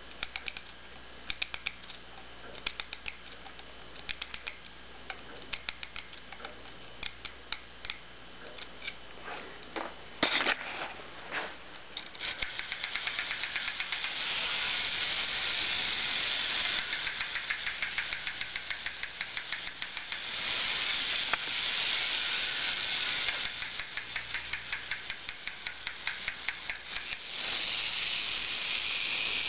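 Clockwork of a 1930s Kellermann (CKO) tinplate wind-up Sozius motorcycle. First the key winds the spring, with ratchet clicks in short runs, and a sharp clack comes about ten seconds in. Then the running mechanism gives a steady, dense rattling buzz, the toy's built-in engine-sound effect, which dips and comes back near the end.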